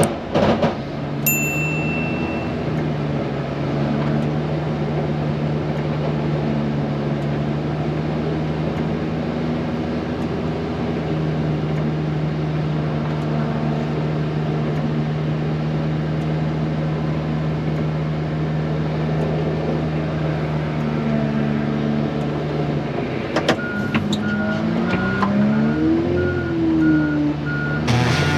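Heavy vehicle's engine running steadily, then revving up and back down near the end while a reversing alarm beeps repeatedly.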